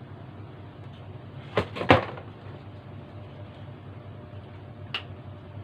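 Parts of a microphone stand being fitted together: two sharp clacks in quick succession about two seconds in, and a lighter click near the end.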